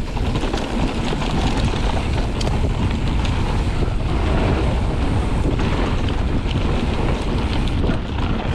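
Wind rushing over the microphone as a mountain bike descends a dirt trail at speed, with the tyres rolling over dirt and a wooden boardwalk and the bike rattling in short clicks.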